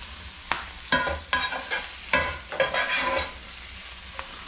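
A slotted metal spatula scraping chopped beef up off a hot skillet in a handful of short scrapes and clinks, over a steady sizzle from the pan.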